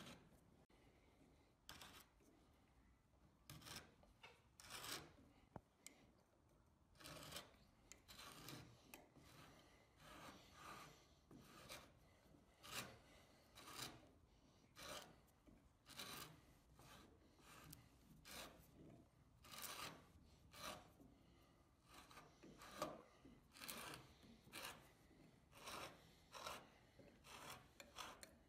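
A large hand tap cutting wooden screw threads into an oak block, in short, irregular rasping scrapes about one or two a second as the tap is turned.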